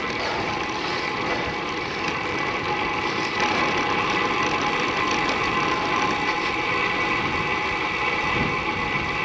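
Disc-brake road bike in motion: steady wind and road noise with a continuous thin, high ringing laid over it, the kind of disc brake rub and squeal that persisted on this bike despite every fix tried.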